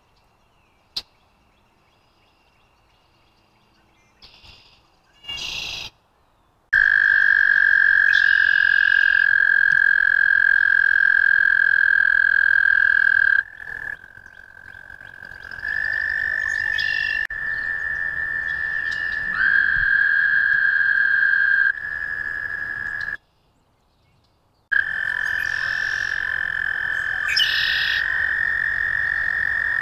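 American toad trills: long, steady, high musical trills several seconds each, starting about seven seconds in, sometimes overlapping at slightly different pitches. This is the male's breeding-season mating call.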